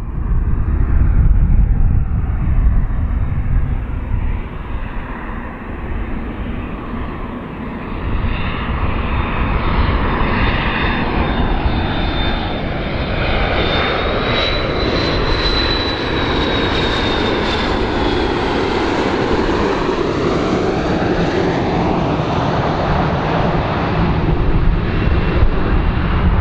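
Large airplane's engines running loudly, with a high whine that rises and then falls about halfway through.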